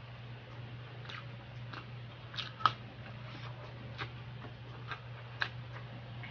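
Close-up eating sounds of a person chewing garlic longganisa and fried rice: irregular wet mouth clicks and smacks, one sharper about two and a half seconds in, over a steady low hum.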